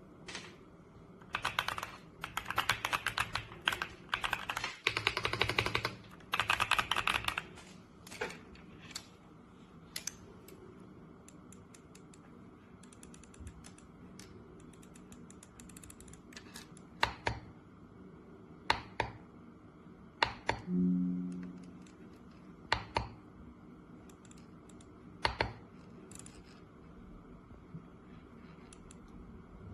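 RK Royal Kludge S98 mechanical keyboard with tactile switches being typed on: several seconds of fast typing, then single keystrokes spaced a second or more apart. About two-thirds of the way through there is a short low hum.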